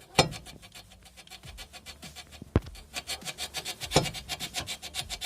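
Removed front lower control arm's rubber bushing (silent block) creaking and scraping as the arm is rocked by hand: a fast run of short creaks with a few sharper knocks. The bushing is worn with play, its rubber come away from the metal sleeve, the cause of a grinding squeak in the front suspension.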